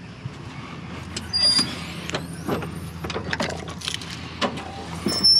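A run of metallic clinks, knocks and rattles from hands rummaging in a metal tool chest and handling a motorcycle key on its ring, with a couple of brief ringing clinks. A steady low hum runs underneath.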